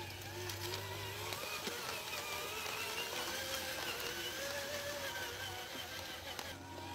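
Radio-controlled dump truck's electric drive motor and gearbox whining as it drives, the pitch slowly rising and falling with the throttle, with faint scattered clicks.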